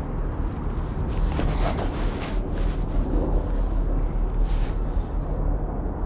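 Wind rumbling on the microphone, with a few brief rustles of handling or clothing.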